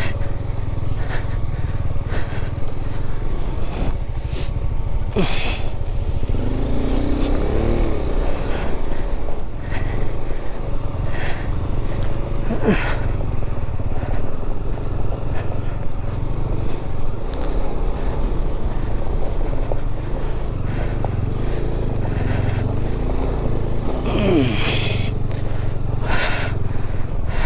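KTM 390's single-cylinder engine running as the motorcycle is ridden slowly over rough, loose off-road ground, with scattered knocks and clatters on top of a steady low rumble.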